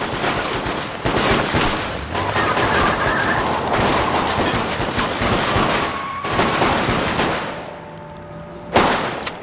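Rapid handgun fire: many sharp shots in quick succession, with glass shattering among them. The shooting thins out after about seven seconds, and one last loud shot rings out near the end.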